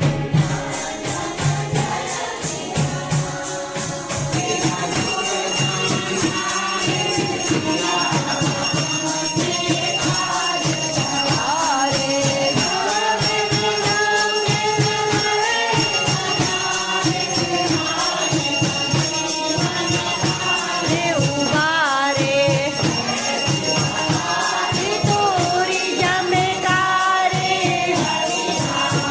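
Devotional kirtan: group singing of a bhajan with jingling hand percussion. About four seconds in, a fast, even shaken-jingle rhythm and a steady high bell ring join the singing.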